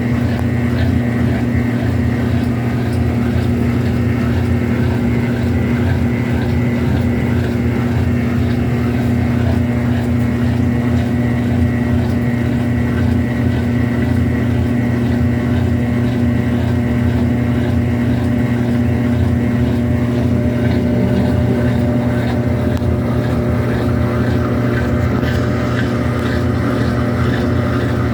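Consul Maré 7.5 kg washing machine running its spin cycle: a steady, unchanging motor hum.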